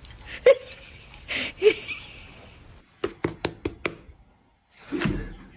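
A quick run of about six sharp knocks, a little over a second long, after two short sharp sounds near the start.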